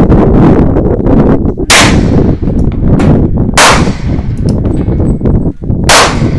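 Three gunshots about two seconds apart, each a sharp crack with a short ringing tail, over a steady loud low rumble.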